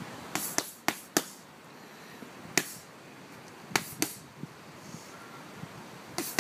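Boxing gloves punching focus mitts: sharp slaps, about eight in all, a quick run of four in the first second or so, then single hits and pairs with pauses between.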